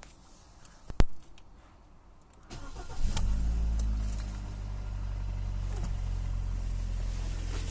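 Car engine started from cold: a sharp click about a second in, a short crank, then it catches and settles into a steady idle. The run is the cold-start knock the owner is showing.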